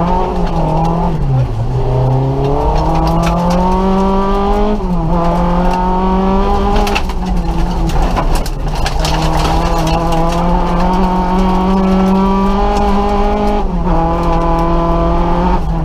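Nissan Micra rally car's engine heard from inside the cabin, pulling hard at speed: its pitch climbs and then drops sharply at gear changes, about a second and a half in, about five seconds in and near the end, and holds fairly steady in between. A few short knocks come from the car about halfway through.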